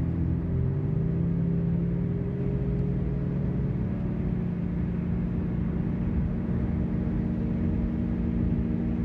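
Car engine running with a steady hum, its pitch stepping up slightly about a second in and again around four seconds.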